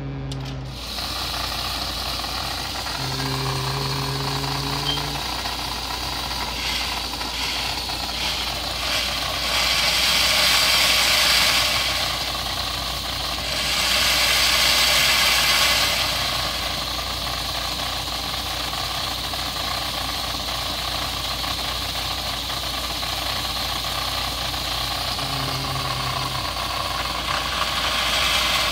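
Electric motor of a vintage Nikko Sea Wolf radio-controlled toy submarine whirring steadily on its stand, running louder for a couple of seconds twice in the middle. A short low hum comes in near the start and again near the end.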